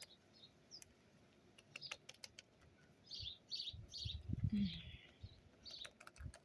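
Wild birds chirping, with a quick run of three short chirps about halfway through and a few more after, over scattered light clicks.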